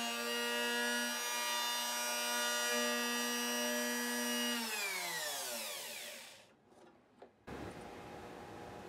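Compact electric router running at a steady high speed, then switched off about four and a half seconds in, its whine falling in pitch as the motor spins down to a stop. A single click follows, then steady room tone.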